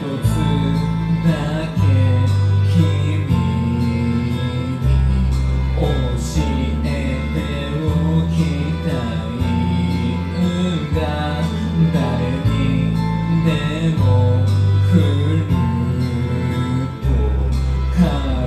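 A man sings a sad song into a handheld karaoke microphone over a karaoke backing track, its bass line changing note every second or two.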